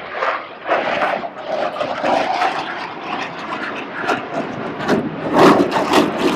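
Aircraft engine noise, loud and uneven, swelling about five seconds in.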